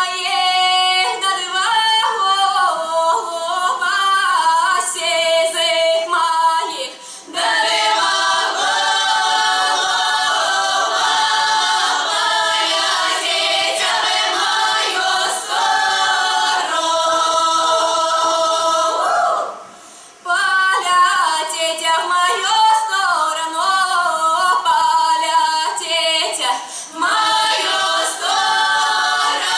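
Women's folk-song ensemble singing a Russian folk song a cappella in close, many-voiced harmony. It goes in phrases, with short breaks for breath about seven and about twenty seconds in; the singing is fuller and denser after the first break.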